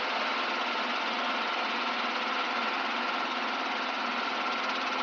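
Robinson R22 helicopter in flight, heard from inside the cabin: the piston engine and rotors running steadily, with a thin steady whine above the drone, just after lifting off and climbing away.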